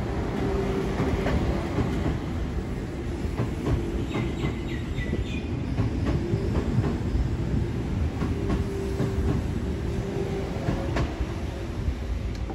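Sydney Trains Oscar (H set) electric train moving along the platform: a steady low rumble and motor hum, with repeated clicking from the wheels over the rail.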